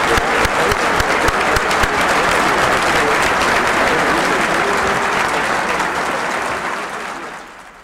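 A large audience applauding: dense, sustained clapping that fades away near the end.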